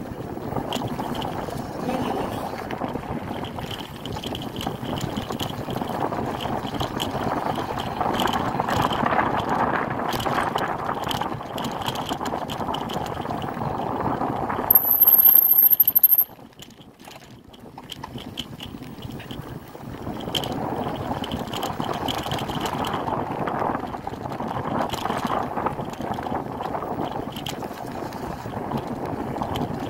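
Steady rushing and rattling of a bicycle rolling over a dirt trail. A brief, loud, high-pitched whine comes about halfway through, and the riding noise drops for a few seconds after it.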